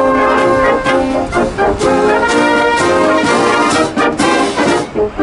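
Military wind band playing: trombones, trumpets, tubas and woodwinds sounding held chords that change every second or so, with a few sharp accents.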